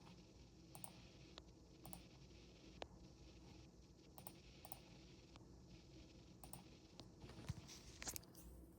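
Ballpoint pen working on paper: faint, scattered light ticks and short strokes, busier and a little louder near the end.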